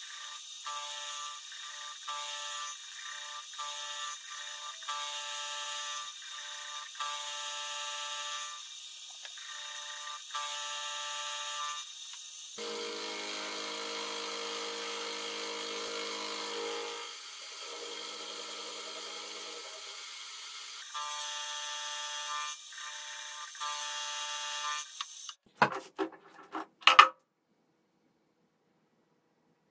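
Benchtop milling machine cutting a steel workpiece, its spindle whining at a steady pitch broken in a regular pulse about one and a half times a second. About twelve seconds in, the pitch drops as the spindle speed is changed, shifts again, then returns to the first pitch. Near the end come a few loud metallic clanks as the part is handled in the vise.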